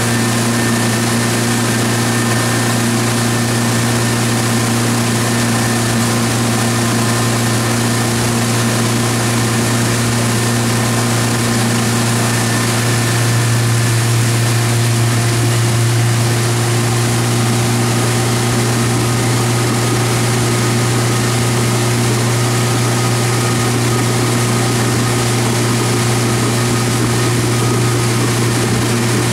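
Towing motorboat's engine running steadily at speed, a constant low hum, over the rush of water and wind. It gets a little louder for a few seconds about halfway through.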